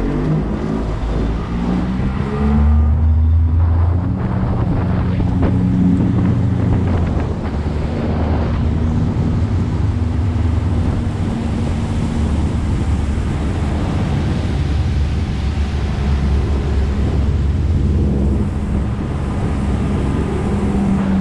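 Boat motor running steadily under way, with wind buffeting the microphone and water noise.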